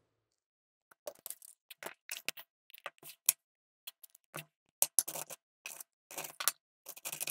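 Short, irregular scratching strokes on a Speetto instant lottery scratch card, starting about a second in, as the coating is scratched off.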